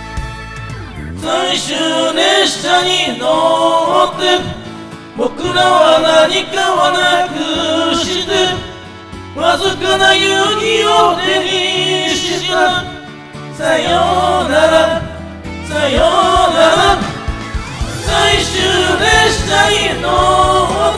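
Several voices singing a J-pop song together into karaoke microphones over backing music, in phrases of a few seconds with short breaths between them.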